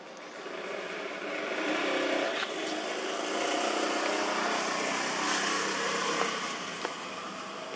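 A motor vehicle passing by: an engine hum that swells up, holds through the middle and fades off near the end.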